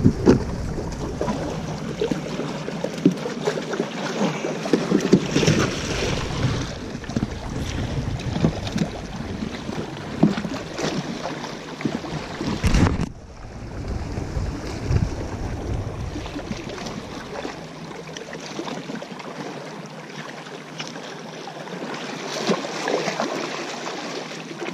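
Wind buffeting a GoPro's microphone, with sea water washing against a rock breakwater. The sound drops out briefly about halfway through.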